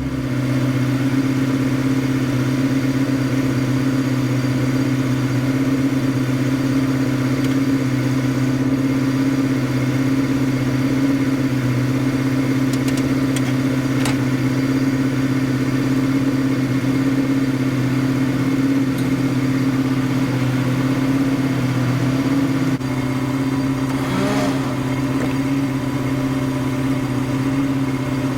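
Ford 302 V8 of an SN95 Mustang idling steadily, with the car running cool on its new triple-pass radiator and electric fans.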